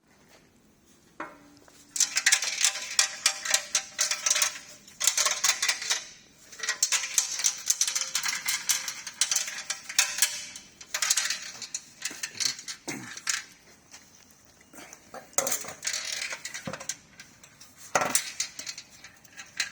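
A loose object rattling and clinking inside a Porsche 997.2 muffler, in repeated bursts of metallic clatter with short pauses between them. The mechanic takes it for a rock trapped inside the muffler.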